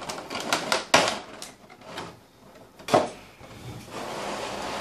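Clear plastic blister packaging crackling and clicking as it is pried apart and a figure is pulled out of it, with a sharp click about a second in and another about three seconds in.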